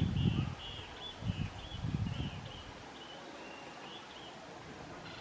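Wind buffeting the microphone in low gusts over the first two and a half seconds, under a string of short, high chirps from a small animal, about two a second, that stop about four seconds in.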